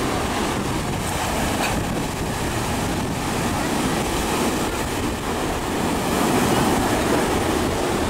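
Sea surf breaking and washing up the beach: a steady rushing noise that swells a little about six seconds in.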